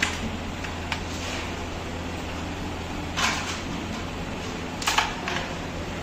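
Carrom striker flicked across the board, clacking sharply into the coins. There is a clack about three seconds in and a louder double clack just before five seconds, over a low steady hum.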